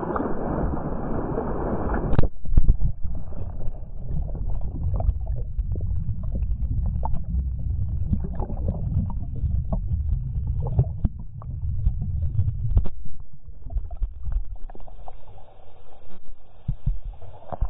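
Water splashing for about two seconds, then a sudden switch to the muffled rumbling and crackling of a phone's microphone under water and waterlogged, as the phone goes into the pool.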